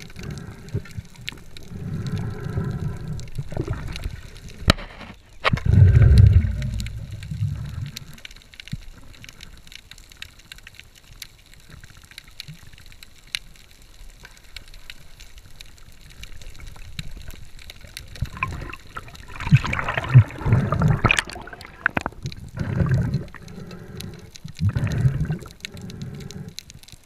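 Underwater bubbling and gurgling from a diver, coming in irregular bursts: a loud one about six seconds in, a quieter stretch, then a busy run about two-thirds of the way through. Scattered sharp clicks sound in between.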